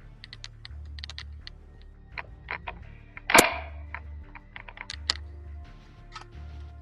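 Airsoft guns firing: irregular sharp pops, with one much louder crack about three and a half seconds in. Background music with a steady low beat runs underneath.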